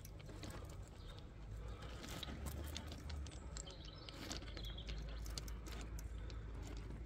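Small pebbles clicking and crunching under the tyres of an Absima Sherpa RC crawler as it creeps slowly over a bed of river stones, over a steady low rumble.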